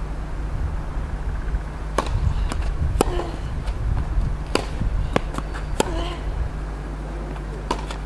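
Tennis rally on a hard court: sharp knocks of racket strikes on the ball and ball bounces, one every second or so, over a steady low hum of wind on the microphone. A few short pitched squeaks or cries are heard between the shots.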